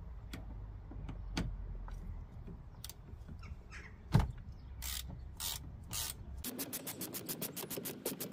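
Ratchet with a T50 hex bit working the large steering-wheel bolt loose: scattered clicks and a sharp knock about four seconds in, then from about six and a half seconds a fast, even run of ratchet clicks, about eight a second.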